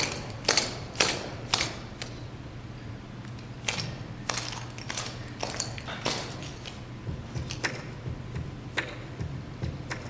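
Irregular sharp clicks and taps, one or two a second, over a low steady hum.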